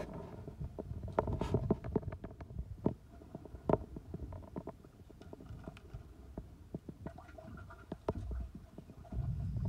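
Low, uneven rumbling of wind and handling noise on the microphone aboard a small fishing boat, with scattered sharp clicks and knocks; the rumble grows louder near the end.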